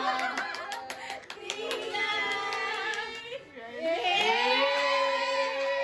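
Group of people cheering and shrieking, with quick hand claps over the first couple of seconds and a long drawn-out cheer from about four seconds in.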